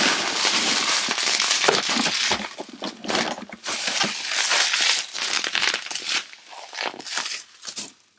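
Plastic bubble wrap crinkling as it is pulled out of a cardboard box and handled. The crinkling is dense and continuous for about five seconds, then comes in shorter spells that die away near the end.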